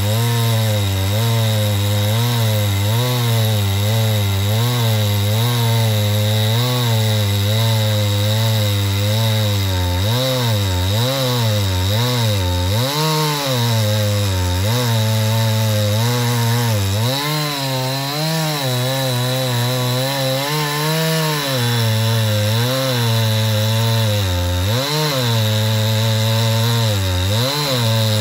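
Two-stroke chainsaw cutting into the trunk of a large tree, running at full throttle. Its engine note holds steady for stretches, then repeatedly sags and picks up again as the cut loads the saw.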